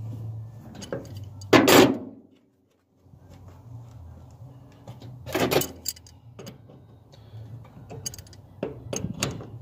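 A ratchet wrench and hand tools working on metal fittings: a few short clanks and rattles, the loudest about two seconds in, over a steady low hum.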